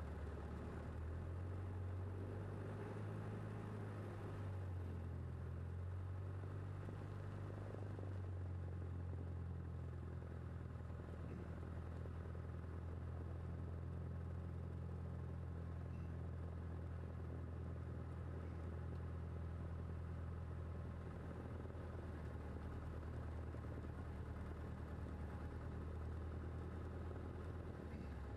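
Cessna 152's four-cylinder Lycoming O-235 engine running at low taxi power, heard from inside the cabin as a steady low drone. Its pitch shifts slightly a few times in the first eight seconds, then holds steady.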